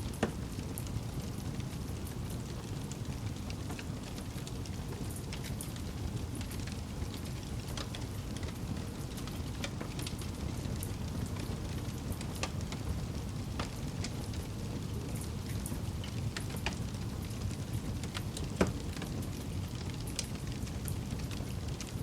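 Wood burning in a campfire: a steady low rush of flame with scattered small crackles and pops. Two louder pops stand out, one near the start and one late on.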